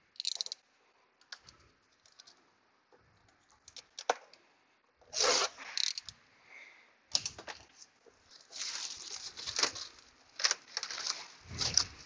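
New brake pads and a pad wear sensor being handled in their packaging: scattered clicks and taps, with bursts of rustling and crinkling about halfway through and again through the last few seconds.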